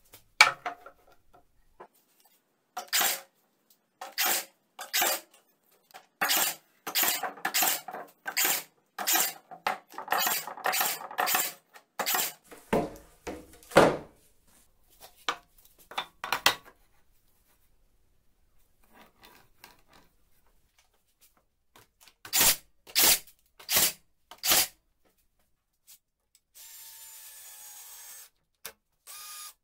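Woodworking on a workbench: a run of sharp knocks and scrapes of wood and chipboard, then four more sharp knocks. Near the end a cordless drill runs steadily for about two seconds driving a screw into the wooden frame, stops, and starts again briefly.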